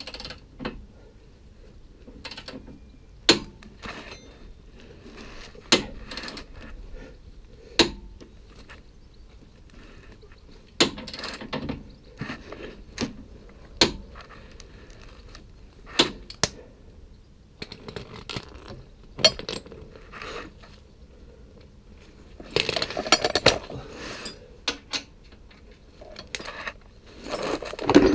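Sharp metallic clinks and clicks of a wrench and socket working on the van's lower suspension arm bolts, coming every two seconds or so, with a denser run of clinks near the end.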